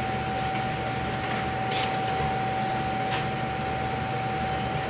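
Beckett oil burner running, a steady high-pitched whine held over the even rush of its fan and flame. The whine is new, and the technician thinks it might be air in the fuel pump.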